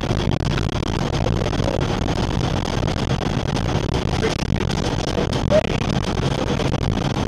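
Engine and road noise from inside the cab of a moving vehicle, a steady low rumble.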